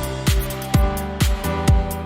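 Electronic background music with a steady kick drum about twice a second, hi-hats between the beats, and held synth chords.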